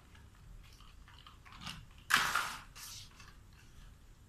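Plastic toy construction vehicle pushed and scraped over cardboard: quiet crinkling and rubbing, with a sharp louder scrape about two seconds in and a smaller one just after.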